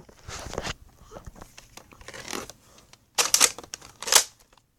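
Nerf Alpha Trooper pump-action dart blaster being worked by hand: plastic sliding and clacking in short strokes, the two loudest about three and four seconds in.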